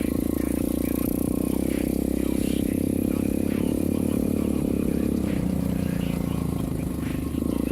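Irbis TTR 125 pit bike's single-cylinder four-stroke engine running steadily while riding, its pitch sagging a little past the middle as the throttle eases and picking up again near the end.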